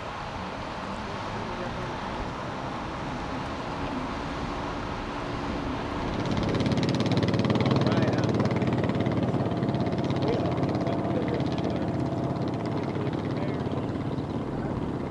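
Off-road ATV or UTV engine running on a trail, growing louder, then a stronger, steady engine note from about six seconds in.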